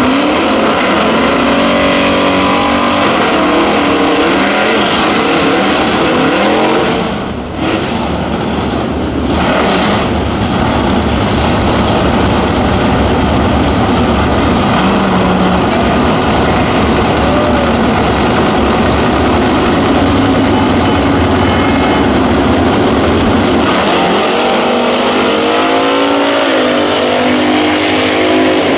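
Engines of two 1960s drag cars, a Plymouth and a Ford, running loud and blipping the throttle at the starting line, then both accelerating hard off the line about four seconds before the end, revs climbing steeply.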